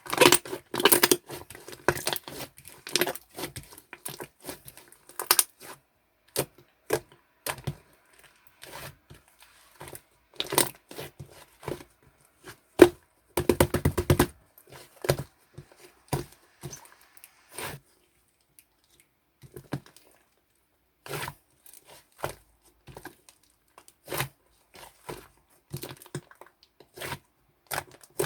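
Slime being stretched, pressed and mixed by hand, giving irregular sticky crackles and small air-bubble pops. The crackling is thickest in the first half and pauses briefly about two-thirds through.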